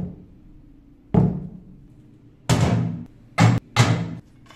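A series of five loud knocks and thuds of wood and metal workpieces and a steel clamp being handled and set down on a workbench.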